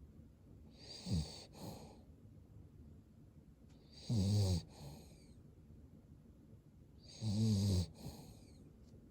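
Cavalier King Charles Spaniel snoring in its sleep: three snores about three seconds apart, each a low buzz with a breathy hiss on top, the first one shorter.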